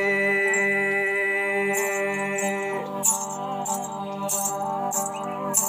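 Ravanhatha, a bowed folk fiddle, holding one long note, then about three seconds in playing a moving melody with the small bells on its bow jingling at each bow stroke.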